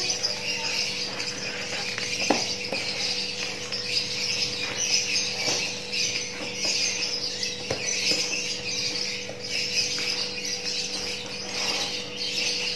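Continuous high-pitched chirping in the background, with a steady faint low hum and a few faint clicks.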